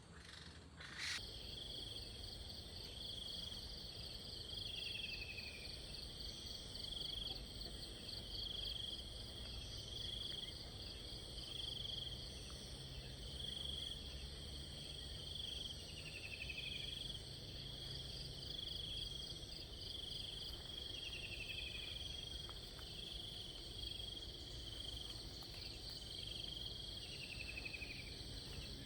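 Insects chirping in a steady chorus: pulsed trills repeating about once a second, with a short falling trill every few seconds, over a low background rumble. One sharp click about a second in.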